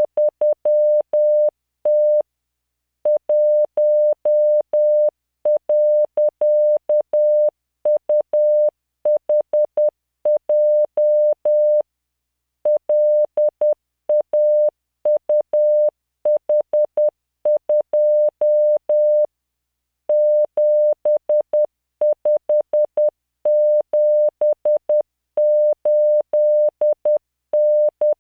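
Computer-generated Morse code (CW) practice tone at 600 Hz, sent at 10 words per minute. A single steady beep is keyed into dots and dashes, with a faint click at each start and stop. The random five-character groups are separated by pauses of about a second.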